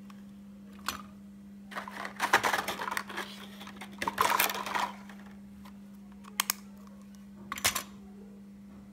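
Handling noises as a battery tea-light candle is set into a glass cup on a metal candle stand: scattered light clicks and knocks with two spells of rustling and scraping, over a steady low hum.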